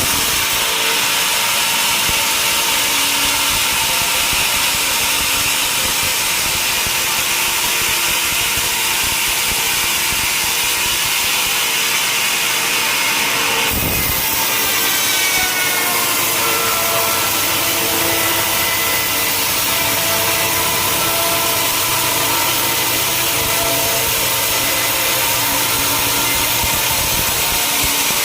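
Sawmill saw running through a log, a loud steady hissing whine. About halfway through there is a brief break, after which its pitch drops and settles lower for the rest of the cut.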